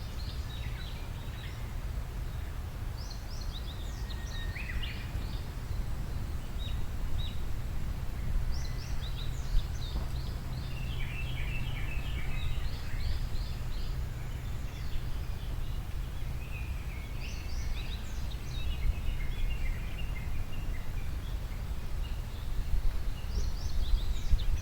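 Small birds singing, short chirping and trilling phrases coming and going, over a steady low rumble of outdoor background noise.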